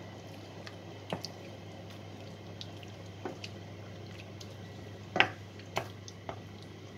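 Wooden spoon stirring chicken pieces in a thick butter and tomato sauce in a stainless steel pan: soft wet squelching with a few sharp clicks and pops, the loudest about five seconds in, over a low steady hum.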